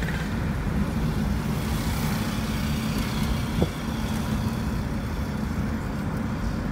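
Steady low rumble of engine and road noise inside a moving car's cabin, with a single short knock about three and a half seconds in.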